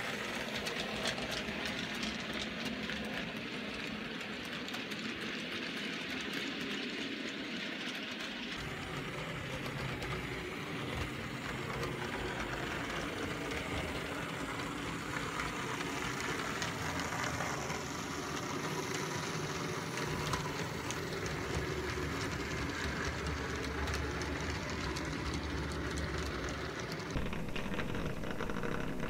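Model freight train running on the layout track: a steady motor hum and wheel rumble with light clicking over the rail joints. Near the end the rumble becomes closer and a little louder, picked up by a miniature camera riding on one of the wagons.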